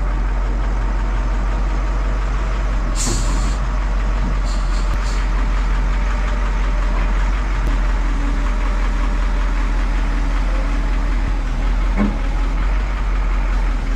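Cat 24H motor grader's big diesel engine running steadily, with a few short hisses about three and five seconds in.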